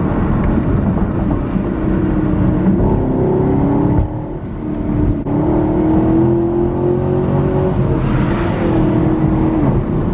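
Chevrolet Camaro ZL1's V8 accelerating hard through the gears with a manual gearbox, heard from inside the cabin. The engine note climbs, drops at a gear change about four seconds in, climbs again and breaks for another shift near the end.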